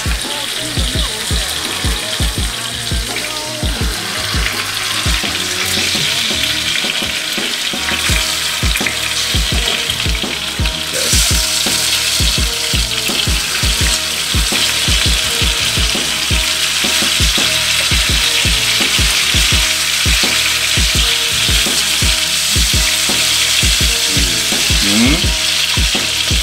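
Chicken wings searing in hot oil in a skillet, a steady loud sizzle, louder from about eleven seconds in, as they are turned and pressed down with metal tongs.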